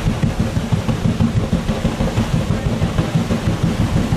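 Paddle steamer Waverley's side paddle wheels beating the water under way, a steady rapid thudding of about six beats a second.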